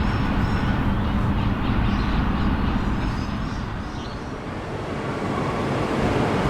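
A vehicle's steady low rumble, easing off about four seconds in and building up again.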